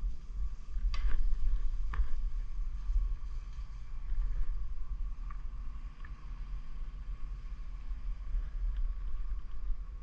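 Steady low wind rumble on the microphone, with a few light clicks and taps of small water-pump parts being handled: twice in the first two seconds, then fainter ones later.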